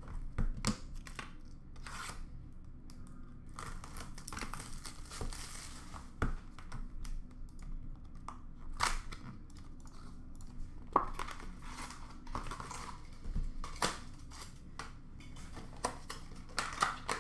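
Trading card pack wrappers being torn open and crinkled, with cards handled and set down: scattered sharp clicks and rustles, and a longer crinkling stretch about four to six seconds in.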